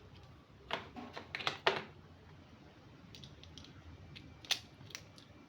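Irregular clicks and clinks of small chrome-vanadium sockets and a ratchet handle being handled in a plastic tool case, a quick cluster about a second in and a few scattered taps later.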